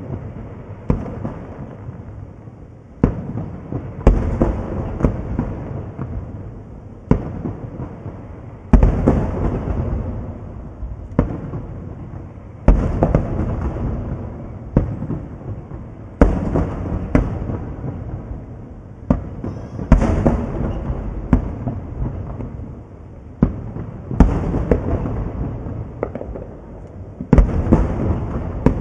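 Aerial fireworks bursting in a steady series, a sharp boom every one to four seconds, each followed by crackling and a rumbling echo that fades before the next.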